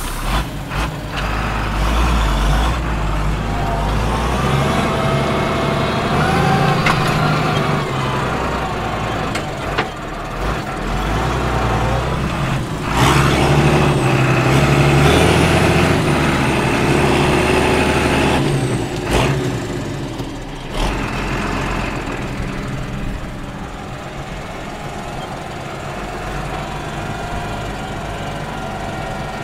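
Case CS 150 tractor's diesel engine pulling under load, heard from the cab. Its note climbs and gets loudest about halfway through, with a faint high whistle rising and falling over it, then settles to a steadier, quieter run near the end.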